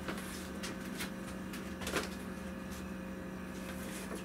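Tanned leather hides being handled and pulled from a cardboard box: soft rustles and light scuffs of leather and cardboard, the loudest about two seconds in, over a steady low hum.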